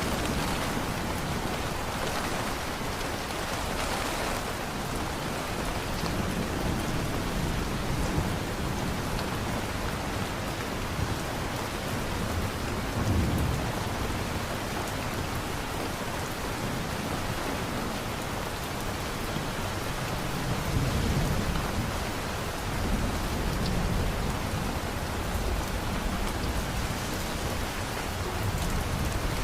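Steady heavy rain falling in a thunderstorm, with low rolls of distant thunder swelling about halfway through and again past two-thirds of the way.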